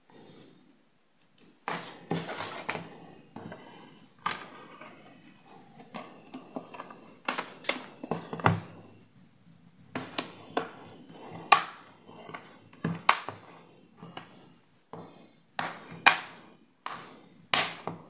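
Handling noise from a tablet being closed up: a scraping rustle, then a run of sharp plastic clicks and taps as the back cover is fitted and pressed onto the frame.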